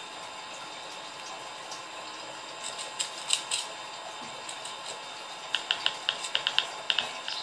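Small bird chirping in short, sharp notes: a few about three seconds in, then a quick run of about ten in the last two seconds, over a steady low hiss.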